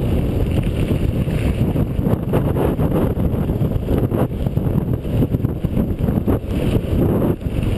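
Wind buffeting the microphone of a GoPro Hero on a mountain bike riding down a gravel path, with tyre noise on the gravel and frequent small knocks and rattles from the bike.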